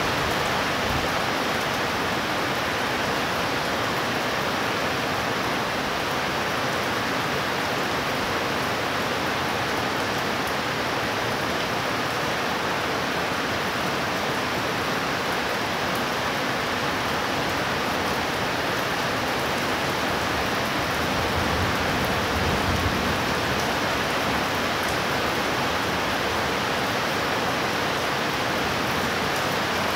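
Steady heavy rain falling, an even unbroken hiss.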